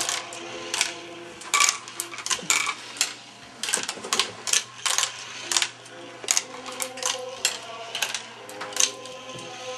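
Plastic marble run clattering: irregular sharp clicks and knocks, several a second, of marbles and plastic track pieces.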